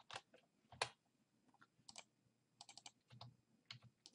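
Faint computer keyboard keystrokes, a scattered run of short clicks at an uneven pace, as a spreadsheet formula is typed in and entered.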